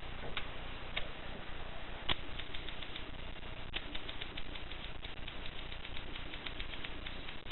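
Typing on a 1950s Voss manual typewriter: a few single keystrokes, then from about two seconds in a quick run of key strikes, several a second, over a steady hiss.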